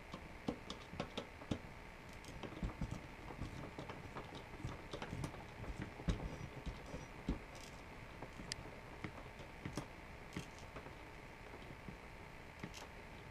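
Irregular light clicks and small knocks of rifle parts being handled as the handguard is worked off a Palmetto State Armory lightweight AR-15.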